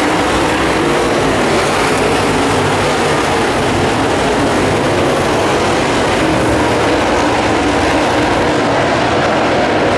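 A pack of dirt late model race cars' V8 engines running together around the dirt oval, a loud steady drone with no let-up.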